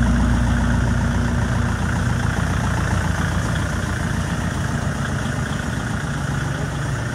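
Kubota L4508 VN tractor's diesel engine idling steadily.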